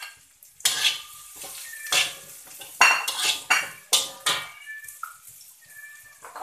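Slotted metal spatula clinking and scraping against a steel wok and a ceramic plate while stir-frying shallots and scraping crushed chili into the wok: a run of sharp clinks with brief ringing, most of them between one and four and a half seconds in.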